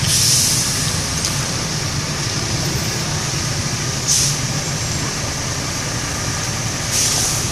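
Bus engine idling with a steady low rumble, with short hisses of released compressed air, typical of air brakes, three times: right at the start, about four seconds in, and near the end.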